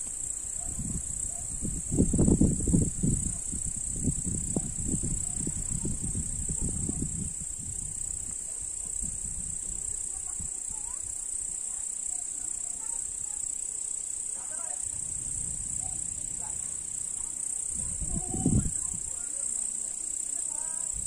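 A continuous high-pitched chirring chorus of crickets in a summer night. Low rumbles break through it, the loudest about two seconds in and another shorter one near the end.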